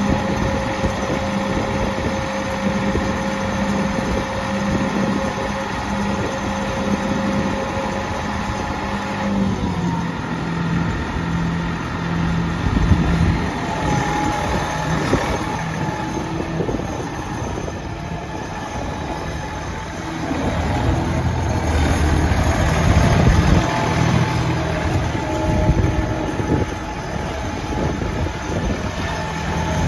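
1997 Massey Ferguson 253 tractor's 57 hp Perkins diesel running as the tractor is driven. The engine note drops a little in pitch about a third of the way in and grows louder past the midpoint.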